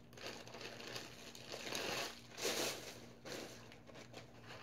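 Clear plastic packaging wrap crinkling and rustling as it is handled and pulled open, in uneven rustles that are loudest about two and a half seconds in.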